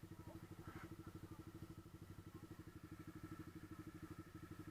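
Motorcycle engine idling, a steady run of rapid, even low pulses.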